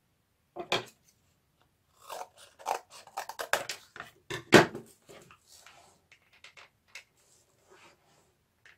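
Paper and cardboard being handled on a tabletop: a run of crackling rustles and light knocks, the loudest about four and a half seconds in.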